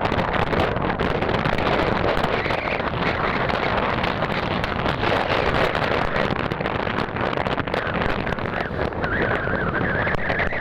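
Wind rushing and buffeting over the microphone of a moving motorcycle, a steady loud noise with frequent crackles. A faint high whine comes in near the end.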